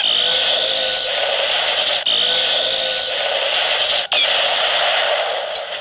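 Electronic sound effect from the Rampage Gatling Progrise Key, a Kamen Rider transformation toy: a dense, buzzy loop that repeats about every two seconds. It breaks off briefly twice and fades out near the end.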